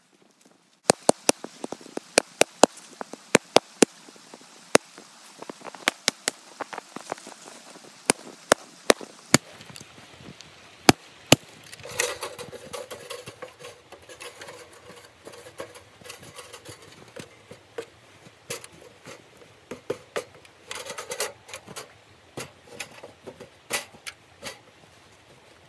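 Sharp, separate snaps and cracks of dry branches in the first ten seconds or so. Then the clinks and rattles of a folding sheet-metal camp stove being carried and set down in snow, with a short ringing metal clatter about twelve seconds in and again near twenty-one seconds.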